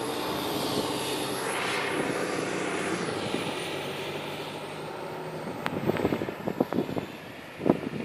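A motor vehicle passes, its engine and tyre noise swelling and fading with a high whine that slowly falls in pitch. Near the end come irregular crunching steps in snow.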